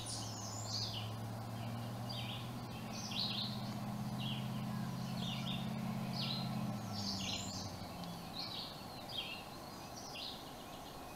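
A small bird chirping in short repeated bursts of high notes, over a low steady drone that fades out about seven seconds in.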